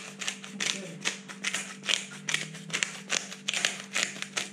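Hand pepper grinder being twisted, grinding peppercorns in a run of short gritty rasps, about three a second.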